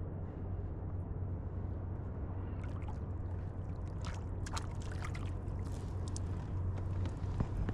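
Water sloshing around a kayak. From about three seconds in come a string of sharp splashes as a hooked small European sea bass thrashes and leaps at the surface on the line.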